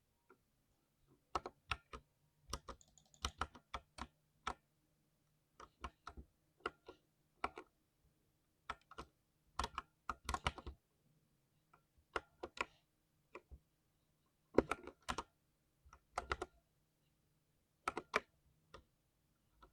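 Typing on a 60% keyboard: sharp key clacks in irregular bursts of several quick strokes, with short pauses between bursts.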